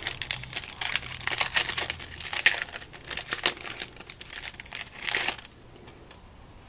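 Foil trading-card pack wrapper crinkling and tearing as it is opened by hand, a dense crackle that stops about five and a half seconds in.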